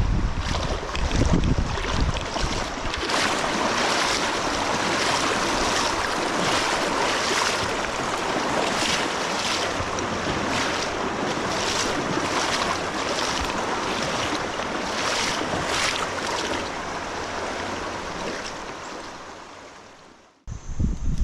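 Rushing, splashing water of a shallow mountain river, with wind buffeting the microphone in the first couple of seconds. The sound fades out near the end.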